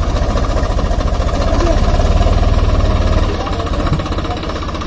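Swaraj 744 FE tractor's three-cylinder diesel engine running with a steady, rhythmic low chug as the tractor drives across the field, easing slightly near the end.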